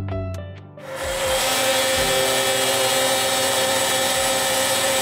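A power tool starts up under a second in and runs steadily with a constant whine, cutting a duct-boot opening through the drywall ceiling.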